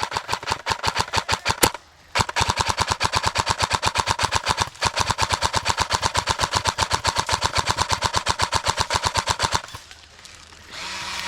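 Airsoft rifle firing on full auto at about a dozen shots a second. A short burst is followed by a brief pause, then one long sustained stream of fire lasting over seven seconds that stops shortly before the end.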